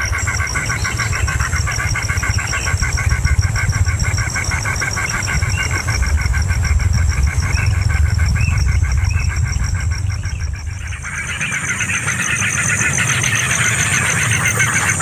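Nestlings chirping in fast, evenly repeated calls over a steady low rumble. About eleven seconds in the rumble drops away and the chirping turns into a denser, busier chatter.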